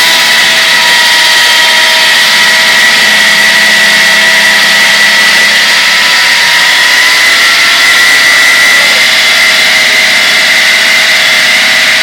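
Electric power tool running steadily under load during wall demolition: a continuous high whine with several held tones over a hiss, and no impacts.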